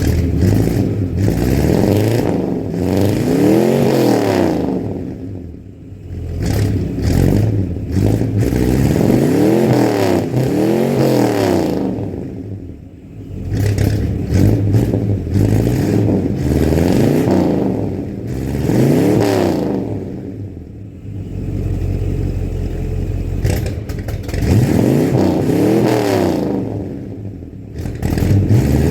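Chevrolet C10 pickup's stock 350 small-block V8 breathing through glasspack mufflers, blipped up and back down to idle again and again, about six revs every few seconds.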